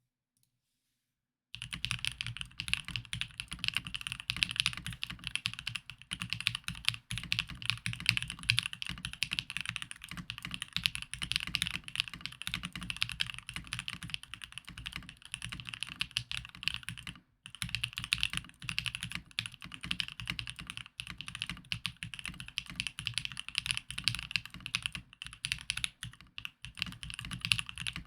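Continuous typing on a Mode65 mechanical keyboard with lubed Alpaca linear switches and Staebies stabilizers: a dense stream of keystroke clicks that starts after about a second and a half, with one brief pause a little past the middle.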